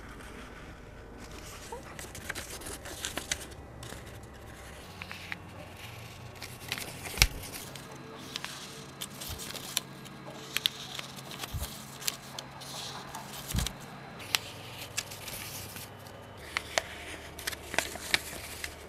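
Felt-tip marker scratching along a strip of paper while the paper loop is turned in the hands, rustling and crackling, with scattered small clicks and taps over a faint low hum.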